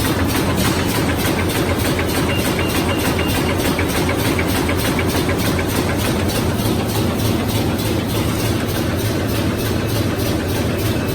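Three-side-seal bag making machine running at production speed: a steady mechanical clatter with a fast, even rhythm from its repeating sealing and cutting cycle.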